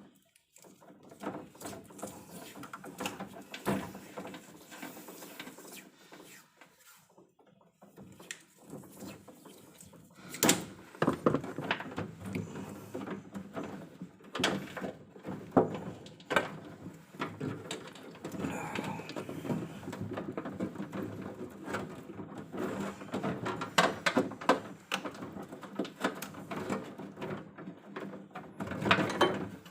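Irregular clicks, knocks and rattles of hand work on electrical panel hardware and cables, busier and louder from about ten seconds in.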